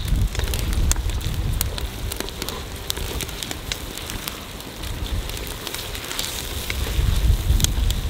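Chopped onions frying in butter in a kazan over a wood fire: steady sizzling with many scattered sharp crackles, over a low rumble that swells near the end.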